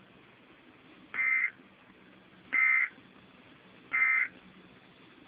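Emergency Alert System end-of-message data tones: three short bursts of high digital squawk, each about a third of a second, about 1.4 s apart, over a faint steady hum. They signal the end of the warning broadcast.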